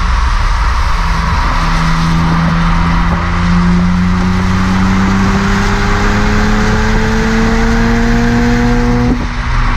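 BMW 135i's N54 twin-turbo straight-six pulling hard through a Milltek rear silencer, its exhaust note rising steadily in pitch under acceleration, then breaking off suddenly near the end at a gear change. Heavy wind and road rush on the microphone, which sits right at the tailpipes.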